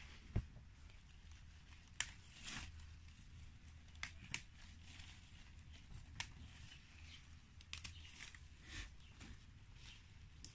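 Crisp snaps of Chinese kale (kai-lan) shoots being broken off by hand, a sharp snap every second or two, with rustling of the leaves between them.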